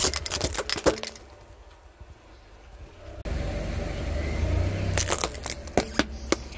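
Plastic sand timers cracking and splintering under a car tyre: a quick run of sharp cracks. A few seconds later comes another run of sharp cracks over a low rumble.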